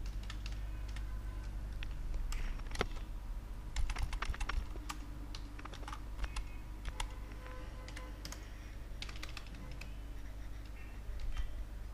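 Computer keyboard typing in irregular runs of key clicks, with pauses between runs. A steady low electrical hum sits underneath.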